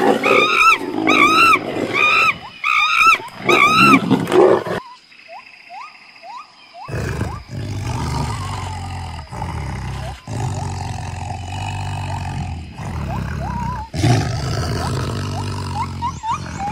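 A gibbon calling a run of about six rising-and-falling whoops, then, after a short pause, a tiger growling low and steadily for most of the rest.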